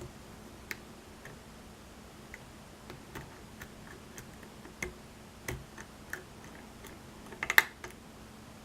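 Lock pick working the pins of a pin-tumbler lock cylinder under tension: scattered small clicks as pins are lifted and set, with a quick run of louder clicks about seven and a half seconds in.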